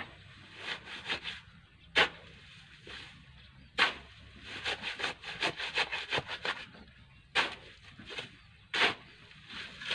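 Steel shovel digging into dry, sandy soil: a few sharp chops as the blade bites in, with bursts of gritty scraping between them.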